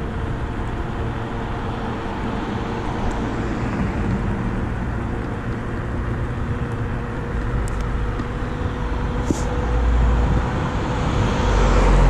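Electric scooter riding along a road: steady road and wind noise with a thin, steady whine. A low rumble swells about two-thirds of the way in and again near the end.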